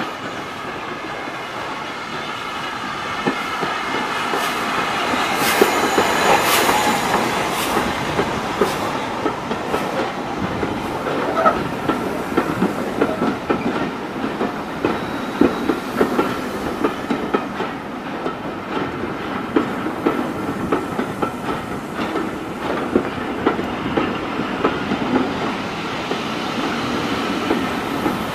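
Steam-hauled passenger train passing close by at low speed as it arrives: LMS Black Five 4-6-0 steam locomotive No.45428 and its coaches. The sound is loudest about six seconds in as the locomotive goes by. After that the coach wheels keep up an uneven clickety-clack over rail joints and pointwork, with a thin steady wheel squeal.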